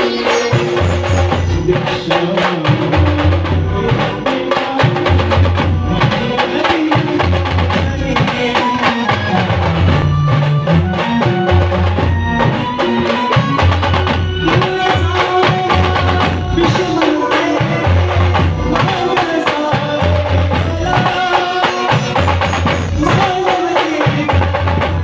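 Indian street brass band music: a melody line over a steady, repeating drum beat with cymbals.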